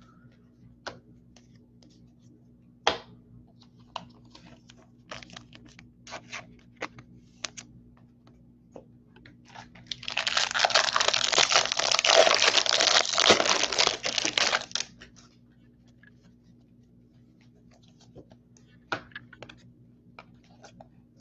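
A foil trading-card pack wrapper being torn open and crinkled for about five seconds, starting about ten seconds in. Before and after it come scattered light clicks of cards being handled.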